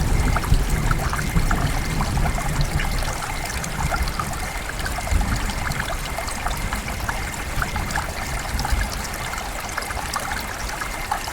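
Heavy rain falling in a forest: a steady hiss full of individual drops ticking. A low rumble of distant thunder is under it in the first half and fades away.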